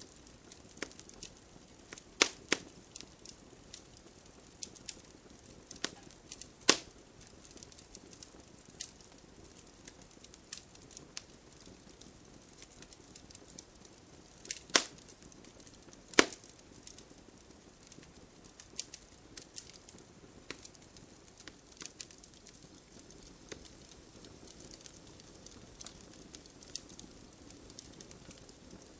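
Bonfire crackling, with irregular sharp pops, the loudest a couple of seconds in, at about a quarter of the way through and twice around the middle, over a steady soft hiss of gentle rain.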